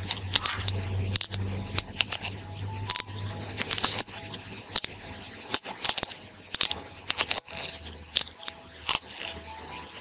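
A homemade pop-it fidget toy made from an empty plastic pill blister pack, its bubbles pressed in and out by fingertips: irregular crackling clicks and pops, several a second.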